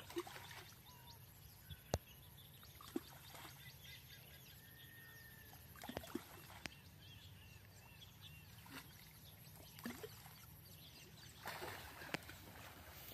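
Faint birds chirping, short scattered calls over a steady low background hum, with a few sharp clicks.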